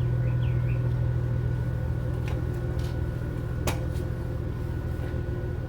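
Steady low mechanical hum, like a small motor or fan running, with a few sharp clicks in the middle and short rising chirps about half a second in.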